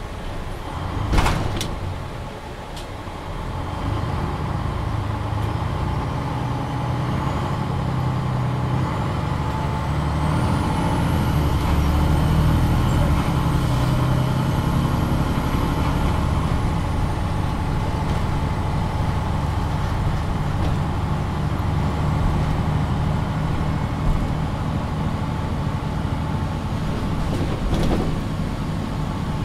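MAN NG 313 articulated city bus, heard from on board: its six-cylinder diesel engine running as the bus pulls away, growing louder from a few seconds in and holding steady. A brief sharp hiss comes about a second in and another near the end, with a faint high whine rising and falling in the middle.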